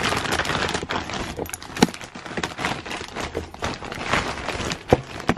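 A plastic mailer bag rustling and crinkling as it is handled and opened by hand, with a few sharp knocks, the loudest about two seconds in and again near the end.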